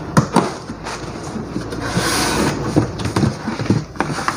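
Cardboard boxes being handled and pulled open: cardboard scraping and rustling, with a few sharp knocks near the start and a longer rasping rush about two seconds in.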